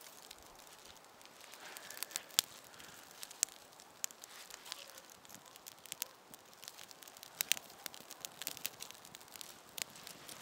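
Dry twigs and kindling crackling and snapping as they are handled and pressed onto a tinder pile of birch bark to get a fire going: irregular sharp snaps, a few a second, over a faint rustle.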